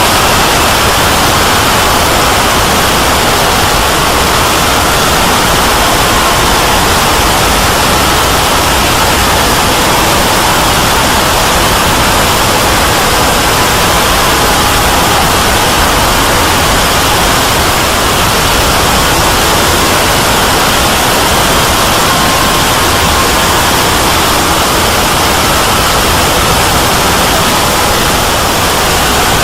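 Loud, steady hiss of static-like white noise across all pitches, cutting in abruptly and running on unchanged.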